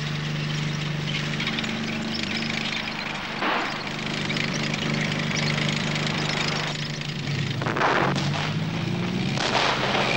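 Armored vehicle engine running with a steady low drone that rises in pitch about eight seconds in, broken by a few sharp bangs: one about three and a half seconds in, and two more near the end.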